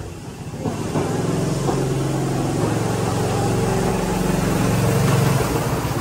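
A vehicle's motor running with a steady low hum that swells slightly and stops about five and a half seconds in.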